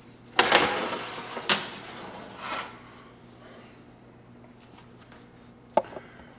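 Kitchen handling noises: a short rustling scrape early on that fades over about a second, two smaller knocks, then a single sharp click near the end.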